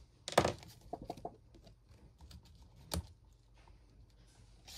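Tabletop handling noises: a loud knock about half a second in, a few light taps just after, and one sharp click about three seconds in, as things such as a pen and a card are set down and moved on a desk.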